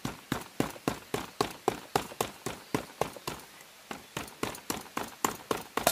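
Quick, regular footsteps, about three to four steps a second, each a short sharp crunch.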